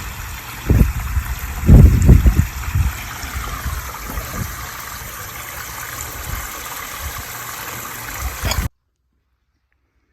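Water pouring down a pondless landscape waterfall: a steady splashing rush, with a few heavy low rumbles in the first few seconds. The sound cuts off suddenly shortly before the end.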